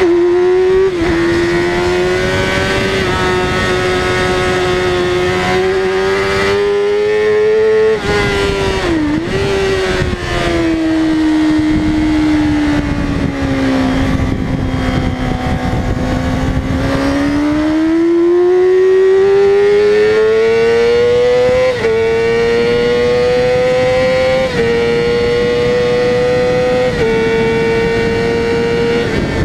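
Yamaha R6's 600 cc inline-four engine running hard at high revs, heard on board with wind noise. The revs hold high, dip sharply about nine seconds in, sink slowly to their lowest around the middle through a long corner, then climb again, with a few quick gear-change steps near the end.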